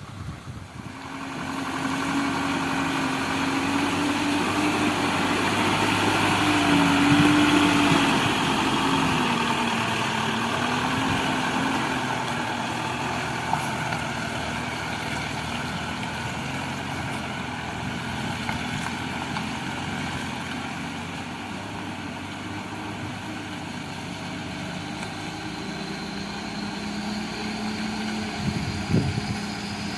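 Heavy construction machine's engine running, building up over the first couple of seconds and loudest about a quarter of the way in, its pitch wavering up and down as it works, then settling to a steady running sound with a faint high whine near the end.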